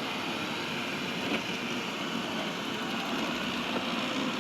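eufy RoboVac R500 robot vacuum running, a steady whir from its suction motor and brushes.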